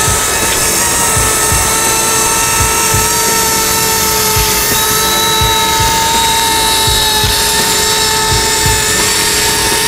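C187 battery-powered RC helicopter hovering: a steady, high electric motor and rotor whine, with gusts of wind thumping on the microphone.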